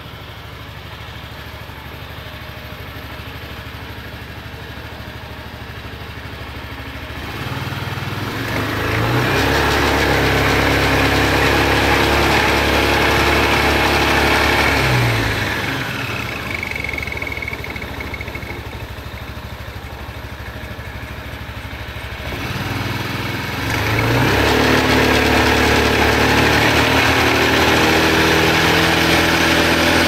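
Znen Roar 250cc scooter's single-cylinder four-stroke engine idling, then revved up about a quarter of the way in and held, dropping back to idle about halfway, and revved up and held again in the last quarter. Along with it is the bad noise from the rear wheel that the owner takes for a failing wheel bearing.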